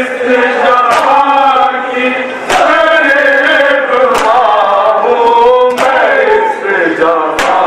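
Male voices chanting a noha, a Shia mourning elegy, in long held sung phrases. A sharp hand strike on the chest (matam) keeps time about every second and a half.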